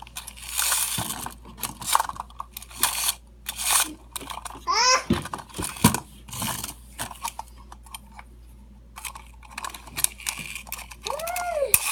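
A clockwork wind-up toy's key being turned: a run of irregular ratcheting clicks and handling noise. Two short high vocal sounds break in, one about halfway and one near the end.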